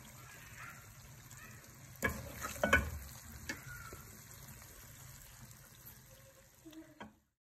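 Chicken karahi being served with a wooden spatula: several sharp knocks and scrapes of the spatula against the metal pot and plate, bunched about two to three seconds in, over a faint steady sizzle from the pot. The sound cuts off suddenly near the end.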